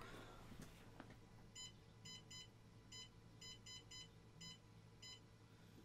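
Faint, short electronic beeps from a Cocoon Create Touch 3D printer's touchscreen, nine in an uneven rhythm. Each beep is one press of the minus button, stepping the PID P value down from 33 to 24.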